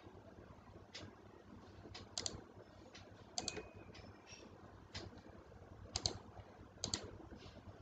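Faint, irregular clicking of a computer mouse and keyboard: about a dozen single clicks, a few of them in quick pairs.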